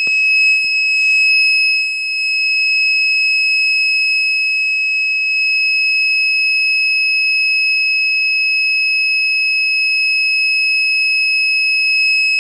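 Handheld infrared methanometer's alarm buzzer sounding one continuous high-pitched tone, set off by the methane test gas now reading above 2% on the sensor. Brief handling noise in the first second or two.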